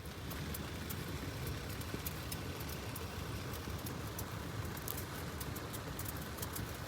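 Heavy rain falling steadily, with scattered sharp drops ticking close by over a low, even rush.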